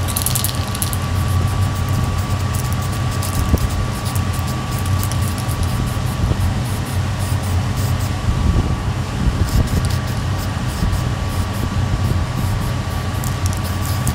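Aerosol can of black enamel paint spraying in short hissing bursts, over a steady low mechanical hum with a faint constant whine.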